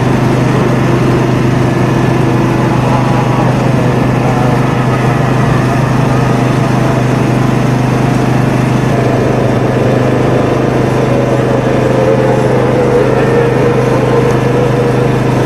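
Boat engine running steadily with a constant low drone.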